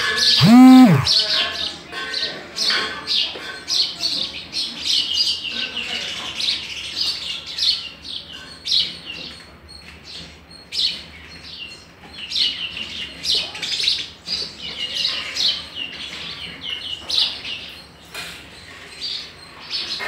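Sparrows chirping in rapid runs of short, high chirps that go on throughout with brief pauses. About half a second in, a louder, lower voice-like sound rises and falls once.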